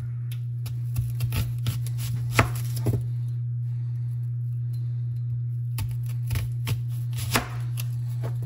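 Kitchen knife cutting a large white onion on a cutting board: irregular knocks of the blade against the board, several close together in places, over a steady low hum.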